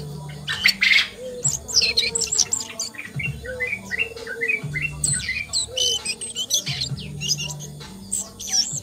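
Asian brown flycatcher singing a fast, varied run of thin high chirps and short trills, rising and falling in pitch.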